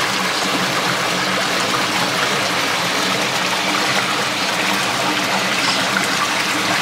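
Stream water flowing in a steady, even rush.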